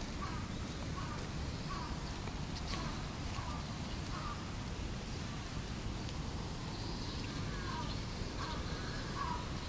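Outdoor background: a steady low rumble with faint short calls repeating about once a second, like distant birds.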